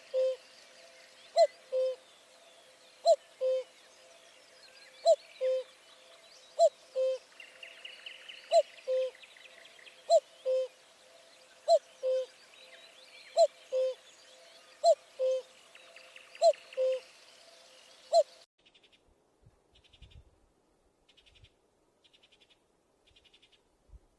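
A bird repeating a two-note call, a higher note falling to a lower one, about every second and a half, over fainter chirping of other birds. The calls stop about eighteen seconds in, leaving only faint, quick chirps.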